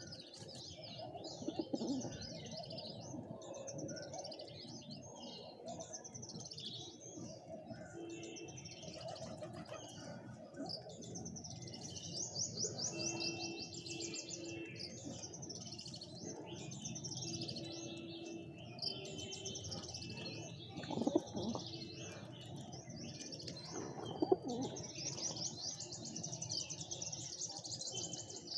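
Pigeons cooing under a steady chatter of high chirps and trills from small birds, with a few sharp knocks or wing flaps about two-thirds of the way in and again near the end.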